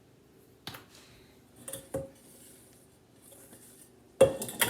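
Dishes and kitchen containers handled on a counter: a few light knocks, two brief soft hisses, then a louder cluster of clatters near the end.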